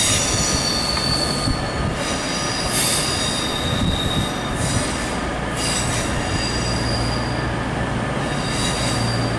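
Virgin Voyager diesel multiple unit running over curved pointwork, its wheels squealing against the rails in several high-pitched squeals that come and go. Underneath is the steady low hum of the train's running gear and engines.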